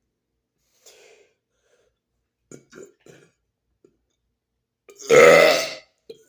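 A man's loud, deliberate burp lasting about a second, about five seconds in, after a few faint clicks.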